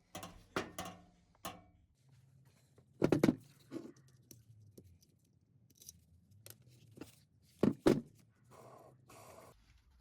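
Hard knocks and clunks of parts or tools being handled: a quick run of knocks in the first second and a half, a loud one about three seconds in, and two loud ones close together near the end, followed by about a second of scraping.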